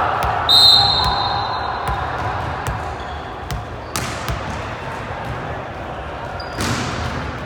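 Volleyball referee's whistle blown once, a high steady blast of about a second starting half a second in, over a gym's background chatter; a few sharp ball knocks follow.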